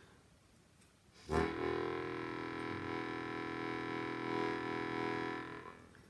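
Hohner 265 bass harmonica playing a single low E note, blown in about a second in, held steady for about four seconds and then released.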